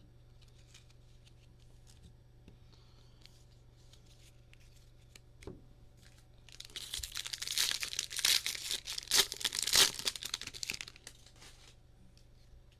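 Foil wrapper of a trading card pack being torn open and crinkled, a loud crackling lasting about four seconds, after a few faint clicks of cards being handled.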